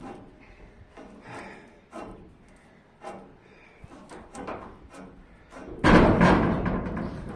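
Faint knocks and handling noise, then a loud scraping rub starts about six seconds in and carries on to the end.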